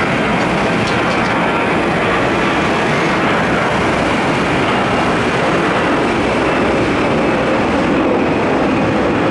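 Airbus A320-214 twin CFM56-5B turbofan jet at takeoff thrust: a loud, steady rushing jet noise as it climbs out.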